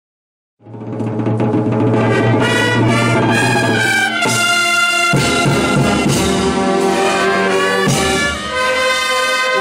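Brass band playing loud sustained chords of trumpets, trombones and low brass, with a few drum or cymbal hits. It begins suddenly about half a second in.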